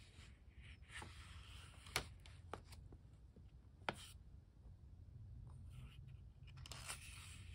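Pages of a Pentalic sketchbook being turned and handled by hand: soft paper rustling, with a couple of sharp paper ticks about two seconds in and again near four seconds as a page flips over.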